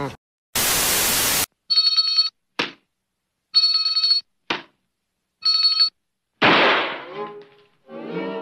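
Electronic ringing tone sounding three times, about two seconds apart, after a short burst of hiss, with brief swishes between the rings. A noisy burst that dies away follows near the end.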